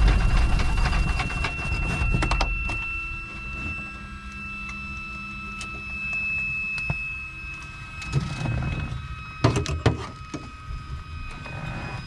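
Cockpit sounds of a parked Piper Super Cub: a low rumble that fades over the first couple of seconds, a faint steady high whine, and a few clicks and knocks near the end.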